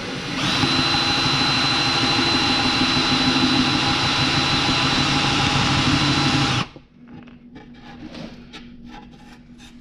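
Handheld electric drill boring into wood with a 1-inch Forstner bit, running steadily with a constant whine for about six seconds, then stopping suddenly so the depth of the recess can be checked. Light handling knocks follow.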